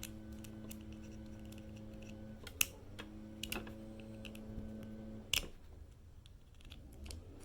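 Small sharp metallic clicks and taps from hand tools working on a Ford F-150 ignition lock cylinder, prying at a small internal bracket. The two loudest clicks come about two and a half and five and a half seconds in, over a steady low hum.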